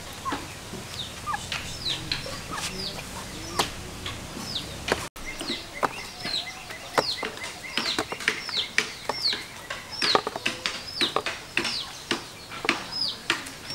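Chickens peeping and clucking: short high peeps that fall in pitch, about one a second and then more often after about five seconds. Sharp clicks of metal kitchen tongs sound among them.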